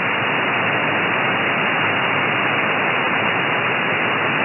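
Steady static hiss from an SDRplay RSPduo receiver in lower-sideband mode on the 80 m band, fed by a Mini Whip active antenna, with no station heard. The hiss stops sharply above about 3 kHz, the edge of the receiver's sideband filter.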